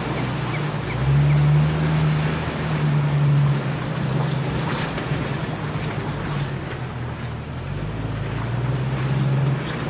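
Jeep Cherokee XJ engine running at low revs, heard from inside the cab as it crawls over a muddy off-road track, its drone swelling and easing a few times. Tyre and body noise underneath, with occasional light knocks and rattles.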